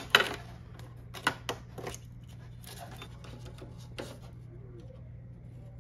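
A few sharp plastic clicks and scratches as a blade scores and snaps pieces of a clear polycarbonate RC car body, the loudest just after the start, over a steady low hum.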